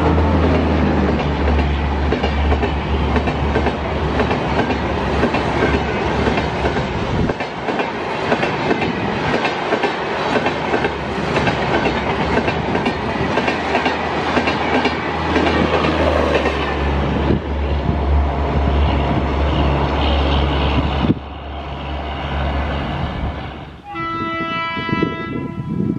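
Passenger coaches rushing past at speed close by: a steady heavy wheel rumble with rapid clattering over the rail joints. It drops off suddenly about 21 seconds in. Near the end an approaching WAP-5 electric locomotive sounds one long horn blast.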